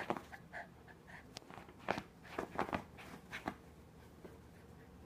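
A small dog rummaging and pawing in its fabric bed: a scatter of short scuffs and scratches, bunched between about two and three and a half seconds in.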